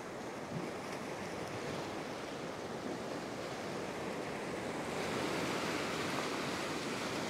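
Ocean swell washing and foaming against a rock shelf, with a surge of white water building about five seconds in.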